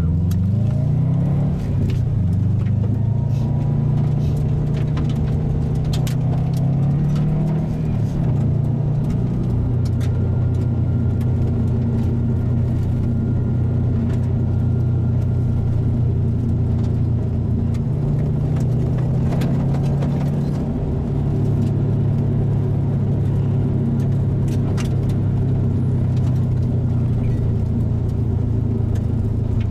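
Subaru STI's turbocharged flat-four engine pulling the car along a gravel road, heard from inside the cabin. The engine note climbs over the first couple of seconds, then holds fairly steady with a few changes in pitch, with scattered clicks of gravel from the tyres.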